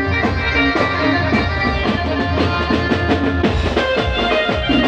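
Loud amplified live band music: dhol drums beating a steady rhythm under an electronic keyboard playing the melody.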